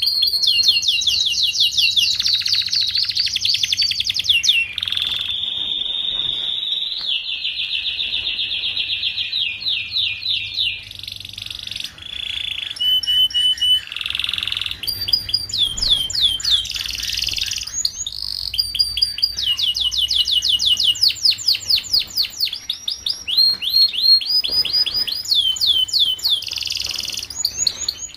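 Domestic canary singing a long, continuous song of rapid trills, each a run of quickly repeated notes, switching to a new trill every second or two. It is tutor song of the kind played to young canaries so they learn to sing.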